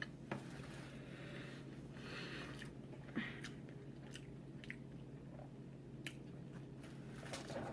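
Faint chewing and mouth sounds of a person eating, with a few small clicks and a low steady hum underneath.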